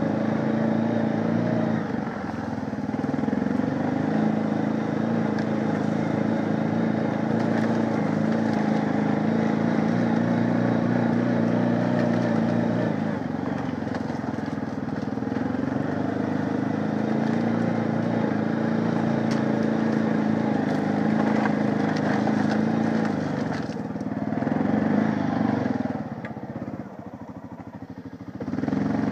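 2009 Honda 500 ATV's single-cylinder four-stroke engine running under throttle while being ridden, its pitch rising and falling with the throttle. It eases off to a much quieter sound a few seconds before the end, then picks up again.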